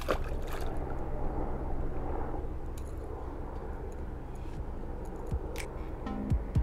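Steady low outdoor rumble, with a few light clicks and taps in the second half as a spinning rod and bobber are handled.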